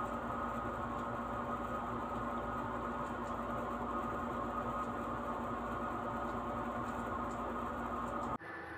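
Steady room noise: a constant hum and hiss with a couple of held tones, like a running fan or appliance. It changes abruptly to a quieter background near the end.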